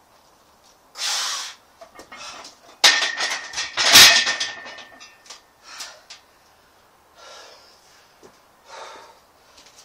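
A heavy exhale, then a barbell loaded with about 187.5 kg of iron plates racked into a steel power rack: a metal clatter with one hard clank and a ringing that lasts a couple of seconds. Heavy breathing follows.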